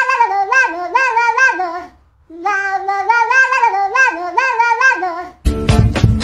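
A high voice singing a wavering melody in short phrases, breaking off briefly about two seconds in. Music with a steady beat cuts in about five and a half seconds in.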